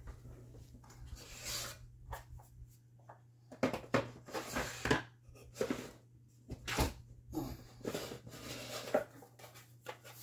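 Small wooden drawers being opened and rummaged through: scattered knocks, clicks and rustles at irregular intervals, over a steady low hum.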